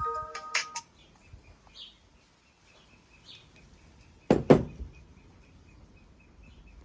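The last notes of a mobile device's melodic alarm ringtone, which cuts off under a second in. Then a faint high chirp repeats about four times a second, and two loud knocks come in quick succession a little past the middle.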